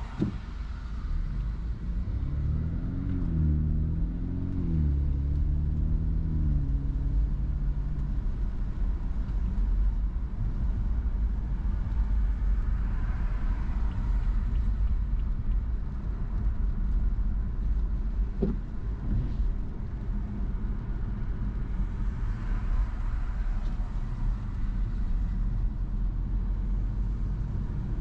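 Car driving, with a steady low rumble of engine and road noise. In the first several seconds the engine note rises and falls in steps as the car pulls away and picks up speed. There is a single sharp click about two-thirds of the way through.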